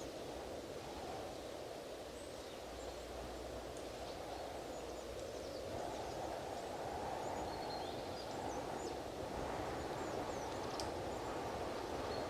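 Strong wind blowing steadily, swelling slightly about six seconds in, with faint short high bird chirps scattered through.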